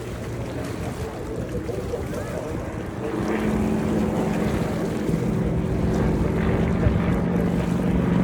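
Wind buffeting the microphone, and from about three seconds in a steady engine drone with a low hum that comes in and grows louder.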